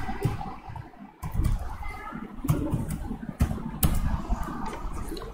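Computer keyboard being typed on: irregular key clicks and a few duller knocks.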